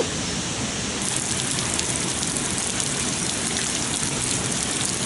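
Steady heavy rain falling. About a second in, a brighter, denser patter of drops sets in and continues.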